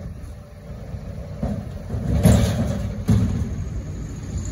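Heavy diesel engine running steadily, with three loud metal clanks in the middle of the stretch, the second the loudest. The clanks come as a steel boat-shaped load is lowered by an excavator into a steel dump-truck bed.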